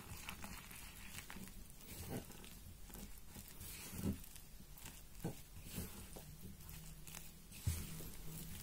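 Spatula stirring flour and water into a shaggy bread dough in a glass bowl: soft scraping and squelching with irregular dull knocks against the bowl, the loudest about four seconds in and near the end.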